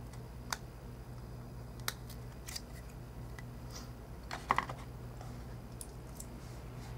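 Scattered small clicks and taps of iPhone parts being handled during disassembly, about eight in all, the loudest a double click near the middle, over a steady low electrical hum.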